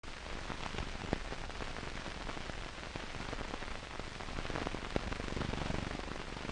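Noise from an old film soundtrack: a steady hiss with scattered clicks and pops, starting suddenly with no speech or music.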